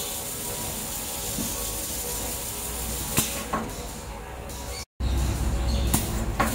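A glue roller's automatic cleaning device running: water splashing and hissing in the tray as a rotating brush scrubs the roller, with a few sharp clicks. After a cut about five seconds in, a louder low machine hum comes in.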